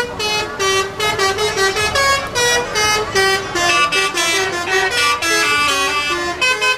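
Telolet horn of an Indonesian intercity bus: a multi-tone horn playing a quick melody of short, stepped notes. The tune runs on with hardly a break.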